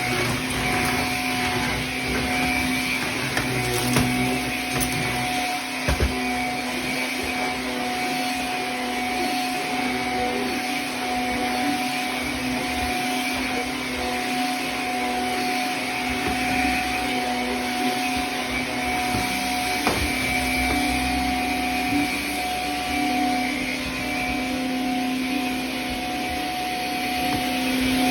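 Shark vacuum cleaner running steadily over a carpet runner and floor, a constant motor drone with a few brief knocks.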